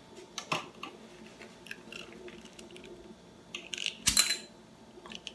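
A Ramune marble-seal soda bottle being opened: a small click, then about four seconds in a sharp pop with a short fizz and a clink as the glass marble is pushed down and drops into the bottle.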